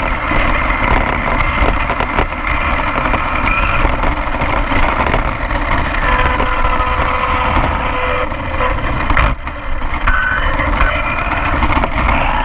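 Battery-electric RC car driving over asphalt, heard from a camera mounted on the car: motor whine over a steady road and wind rumble. The whine's pitch slides down about six seconds in, and there is a brief knock about nine seconds in.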